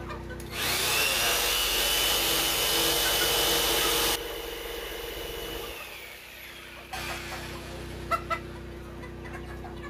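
Corded handheld power tool held against a plywood wall on a marked window cut. It spins up about half a second in with a high whine and runs steadily for about three and a half seconds. Then it is switched off and winds down over a couple of seconds, followed by a few light knocks.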